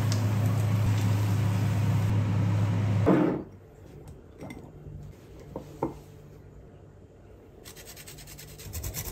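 A potato pancake sizzling in oil in a frying pan, with a steady low hum underneath, cutting off after about three seconds. A few light clicks follow, then near the end quick rasping strokes of a fine rasp grater grating cheese over the pancake.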